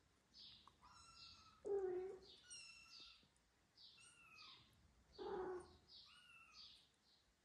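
Young kittens mewing repeatedly in short, high, thin calls. Two louder, lower-pitched meows come about two seconds in and again about five seconds in.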